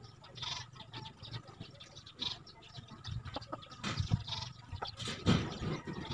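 Birds chirping in short calls, with a few dull knocks about four and five seconds in, the second the loudest.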